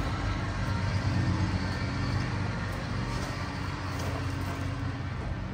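Steady low mechanical hum, like a motor or machine running, holding an even pitch throughout.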